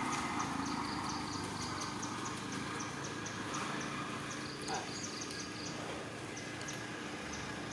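Insects chirping over steady outdoor background noise: short high-pitched chirps repeat a few times a second, some in quick runs. There is one short faint squeak about halfway through.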